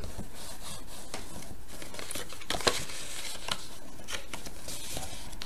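Black cardstock being folded by hand along its score lines: soft paper rustling with scattered light ticks, a few a little louder about halfway through.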